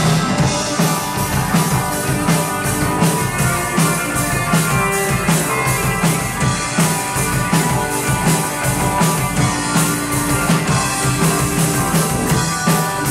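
Live rock band playing an instrumental passage: drum kit keeping a steady beat under electric guitars and held chords, with no singing.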